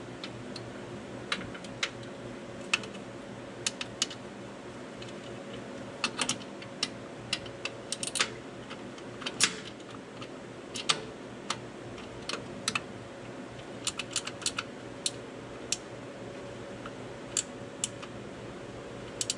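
Irregular sharp metal clicks and taps of a hand wrench working on the power steering pump's bolts and fittings, over a steady low hum.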